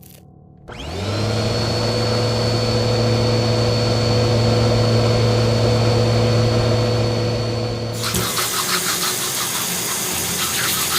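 An engine starts about a second in and runs steadily with a whine. From about eight seconds in it turns to a rougher, fluttering hiss.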